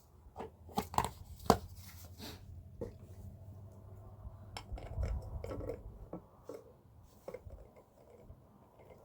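Irregular sharp clicks and knocks, the loudest about a second and a half in, thinning out later, with a low rumble around five seconds in.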